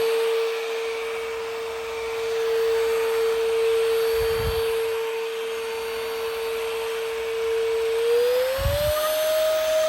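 Bossman cordless vacuum cleaner's motor running with a steady whine over airflow hiss; about eight seconds in its pitch glides up to a higher steady note. Two brief dull low thumps come in between.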